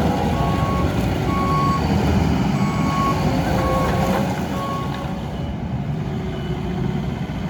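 Compact track loader's diesel engine running, with its reversing alarm beeping about once a second. The beeps stop about five seconds in while the engine keeps running.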